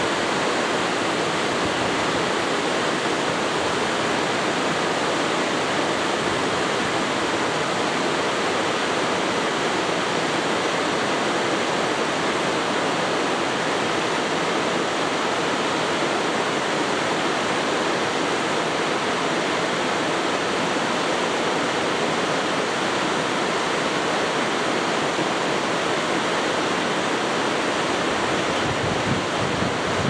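Waterfall cascading down a rock face into a pool: a steady, even rush of falling water. Wind buffets the microphone briefly near the end.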